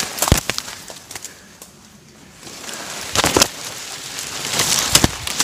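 Footsteps pushing through dense undergrowth: leaves and brush rustling with sharp twig snaps and crackles, easing off briefly about two seconds in before picking up again.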